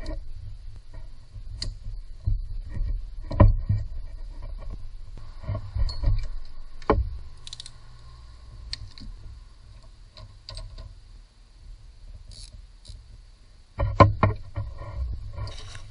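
Hand tools and metal engine parts being handled, giving irregular clinks, clicks and knocks with rustling handling noise. The loudest knocks come about three and a half seconds in, once near seven seconds, and in a quick cluster near the end.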